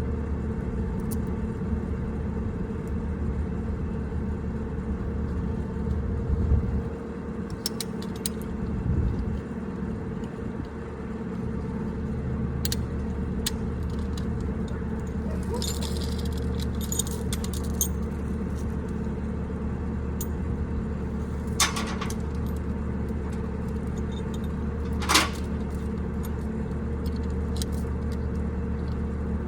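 An engine running steadily, with scattered metal clinks and a brief jangle of metal about halfway through.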